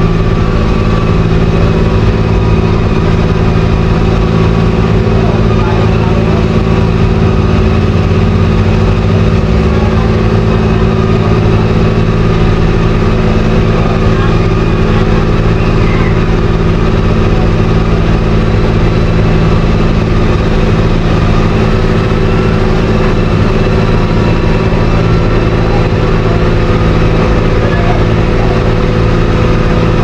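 Heavy diesel engine of road paving machinery running steadily at constant speed: an even, unchanging hum made of several low steady tones.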